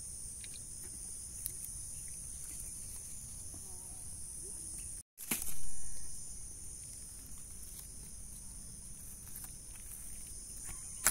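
Steady high-pitched drone of insects in the surrounding grass and trees. About five seconds in the sound cuts out for an instant and a louder rustle of handling follows; a few light clicks and rustles come near the end.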